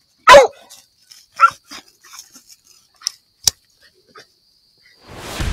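Coyote yelping: one loud yelp falling in pitch just after the start, then several shorter, fainter yelps. A single sharp click comes about three and a half seconds in.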